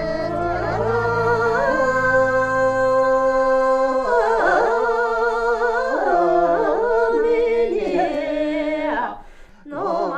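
Singing voices on a slow melody with long, wavering held notes and gliding pitch changes, with a short break near the end.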